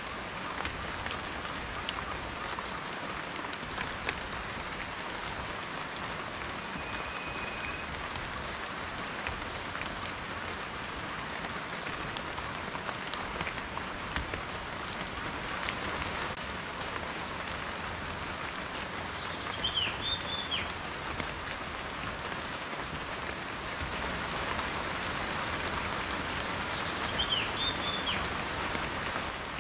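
Steady rain falling, an even patter of raindrops. Two short high chirps cut through it, about two-thirds of the way in and again near the end.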